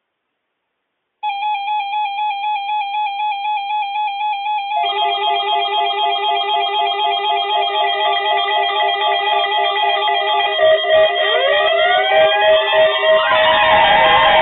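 Several NOAA weather radio receivers sounding their alert alarms for the Required Weekly Test. A warbling electronic beep starts about a second in, a second receiver's tones join after about five seconds, and rising whooping tones layer in near the end.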